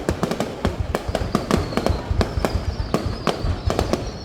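Fireworks going off in a rapid, irregular barrage of bangs and crackles. A faint high whistle is held underneath from about a second in.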